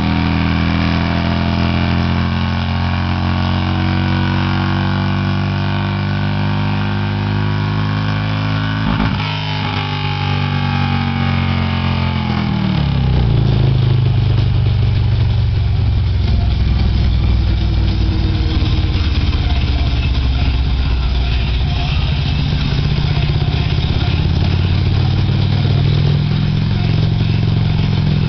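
Harley-Davidson touring motorcycle's V-twin running under load on a chassis dyno, its pitch creeping slowly upward in a long pull. About twelve seconds in the throttle closes and the pitch drops steeply, leaving a deeper, rougher rumble as the engine and dyno roller run down.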